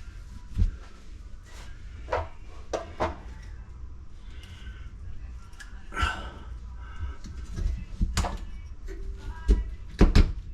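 Irregular clicks and knocks, about eight of them and loudest near the end, as pipe and SharkBite push-fit fittings are handled and pushed together. A low steady hum runs underneath.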